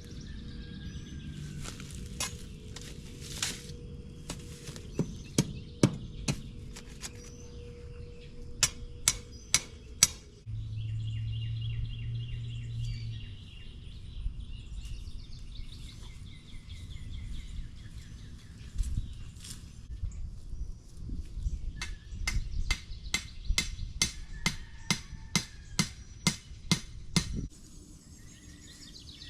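Series of sharp knocks and clanks, quickest in a run near the end, over a low rumble that cuts off suddenly, with birds chirping.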